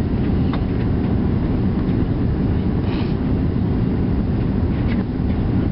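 Airliner cabin noise on final approach: a steady, loud rumble of the jet engines and the airflow past the fuselage, with a few faint short clicks.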